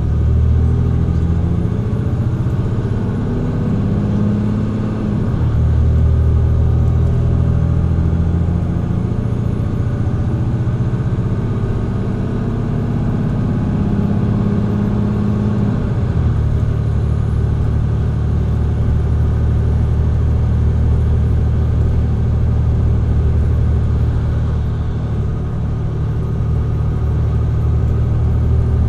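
Mercedes-Benz Citaro C2 G hybrid bus's diesel engine pulling hard under acceleration, heard from inside the rear of the bus, with its Voith automatic gearbox shifting up about five seconds in and again about halfway through, the engine note dropping at each shift.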